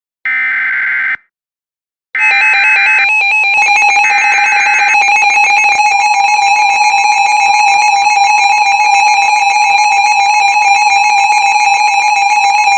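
Emergency Alert System SAME header: three one-second bursts of screeching data tones with short gaps between them. Then comes the EAS two-tone attention signal, a harsh steady alarm: its lower tone starts about two seconds in, under the data bursts, and the second tone joins about six seconds in.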